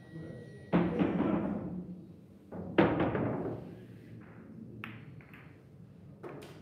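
Billiard balls in play on a boccette table: two heavy knocks about two seconds apart, each ringing on for about a second, then a few lighter, sharp clicks of balls near the end.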